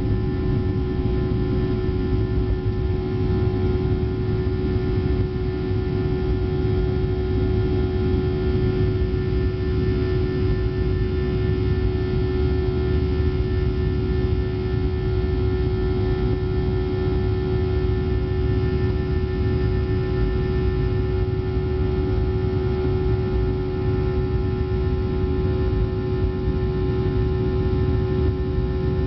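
Boeing 737-800's CFM56-7B turbofan engines at takeoff thrust, heard from inside the cabin over the wing: a loud, steady rush with a steady droning tone, through the end of the takeoff run, liftoff and climb-out.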